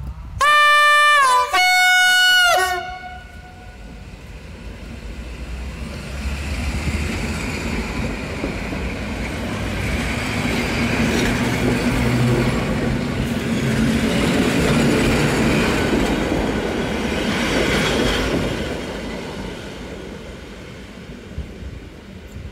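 EN57 electric multiple unit sounds two short horn blasts, the second a little higher in pitch, as it departs. It then runs past with a swelling rumble and clickety-clack of wheels over rail joints that peaks as the carriages go by and fades as the train draws away.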